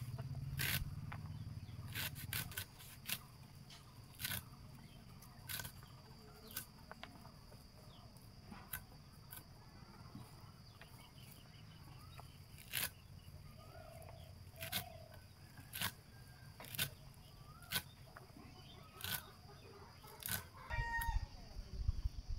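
Fresh leafy greens being sliced by hand against a fixed curved boti blade: crisp short snips as the stems are pushed through the edge, roughly one a second and sometimes two or three close together. Chickens cluck faintly in the background.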